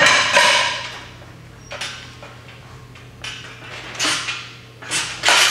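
Steel chains and a loaded barbell in a power rack clinking and rattling in several irregular bursts as the bar is handled.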